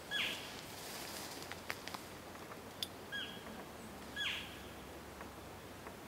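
Three short, high cow-elk mews, each dropping in pitch at its tail: one at the very start, then two about a second apart near the middle. A few faint clicks fall between them.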